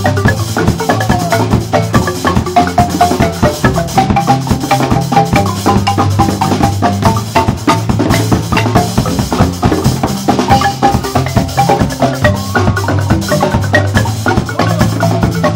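Ensemble of wooden marimbas with tube resonators playing a busy, rhythmic piece of dense, rapid struck notes, backed by a drum kit.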